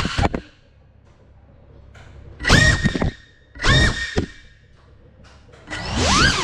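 Small FPV drone's electric motors: the whine cuts off after a couple of knocks, then two short bursts rise sharply in pitch, and near the end the motors spool up again into a rising, wavering whine.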